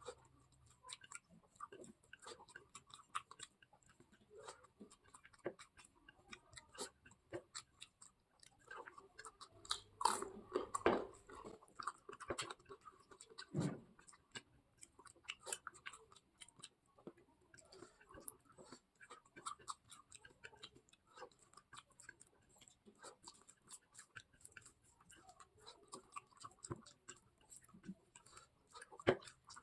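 A person chewing and eating food: a soft, irregular run of small mouth clicks and crunches, louder for a few seconds about ten seconds in.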